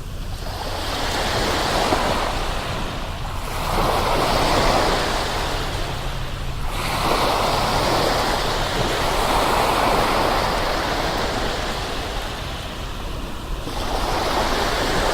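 Ocean surf: waves breaking and washing in, swelling and fading every few seconds over a steady low rumble. One swell cuts off abruptly about six and a half seconds in.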